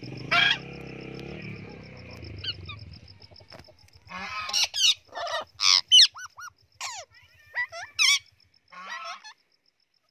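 Parrots, rose-ringed parakeets with a blue-and-gold macaw, squawking with harsh screeches and a few short whistles. One loud call comes right at the start, then a rapid run of loud squawks about halfway through, and a last call near the end.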